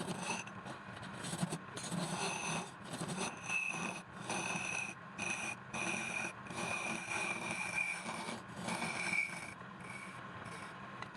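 A tool scraping and rasping against wood in repeated strokes, each about a second long with short breaks between, a high thin whine sounding while it cuts.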